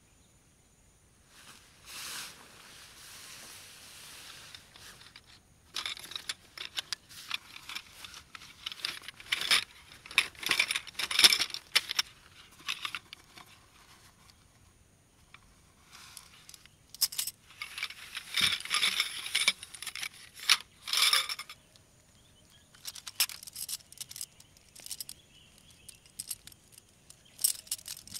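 Tent gear being handled while pitching a tent: nylon tent fabric rustling and small hard parts clicking and rattling in irregular bursts, the busiest a few seconds in and again past the middle.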